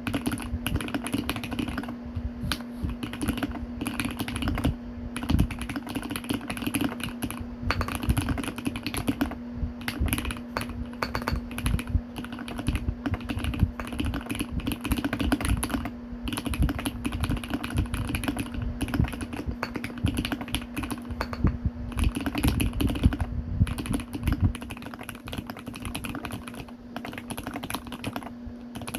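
Continuous typing on a GMMK Pro mechanical keyboard with lubed Gateron Milky Yellow linear switches: fast, irregular keystrokes with a few brief pauses. A steady low hum runs underneath.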